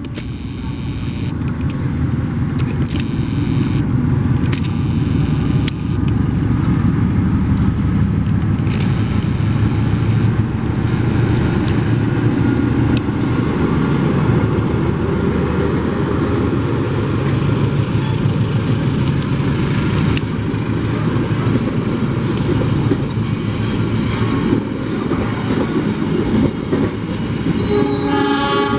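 A train rolling past with a steady low rumble, broken by scattered sharp clicks from the wheels. Its horn starts to sound about a second before the end.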